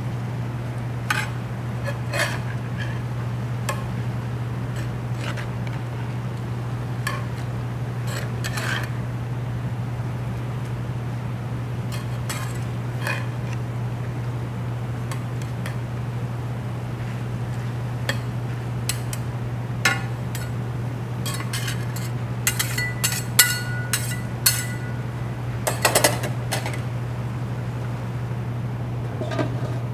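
Metal utensils scraping and clinking against a pan as dak-galbi is stir-fried, scattered through the stretch, with a run of ringing clinks about three-quarters of the way in. A steady low hum runs underneath.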